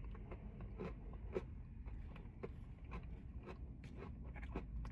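Close-up chewing of a mouthful of Dairy Queen Blizzard soft-serve mixed with Oreo cookie pieces: faint, irregular small crunches and clicks.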